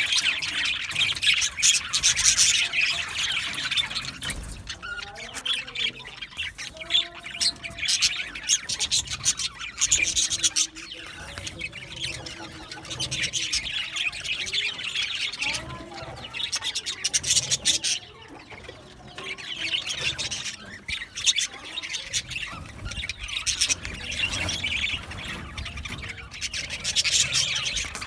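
Budgerigars chattering, with fast overlapping chirps and squawks coming in long bouts broken by a few short lulls.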